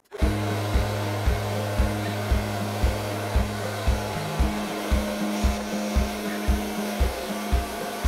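Hair dryer blowing steadily on low heat and low power, a rushing hiss, over background music with a steady bass beat a little over twice a second.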